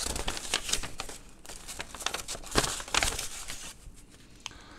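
Sheets of paper rustling and crinkling as they are unfolded and handled, in irregular strokes with a louder flurry about two and a half to three seconds in, then dying down near the end.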